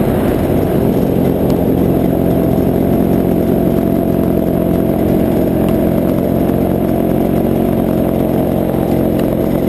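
Paramotor engine and propeller running steadily in flight, holding an even pitch and level.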